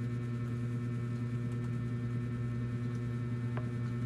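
Steady low hum with a few evenly spaced overtones, unchanging throughout, and one short faint click about three and a half seconds in.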